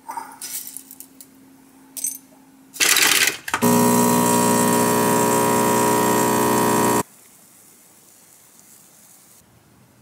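Espresso making: light clinks of a glass jar lid and coffee beans, a brief loud noisy whir about three seconds in, then a loud steady machine hum from the espresso equipment for about three seconds that cuts off abruptly.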